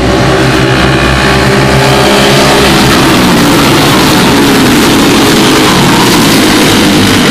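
Racing go-karts with Briggs & Stratton Animal four-stroke single-cylinder engines running at speed around the track, with one kart passing close about four seconds in.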